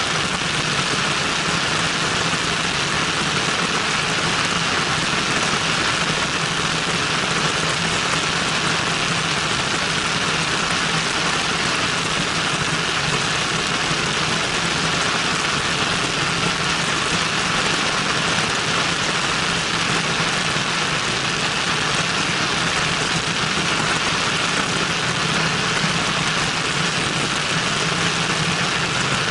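Cessna 172N's four-cylinder Lycoming engine and propeller running steadily in flight, heard from a camera mounted outside the aircraft, so a constant rush of wind noise lies over the engine drone.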